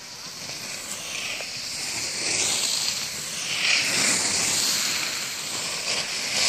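Skis carving short turns on groomed snow: a hissing scrape that swells with each turn, growing louder as the skier comes closer.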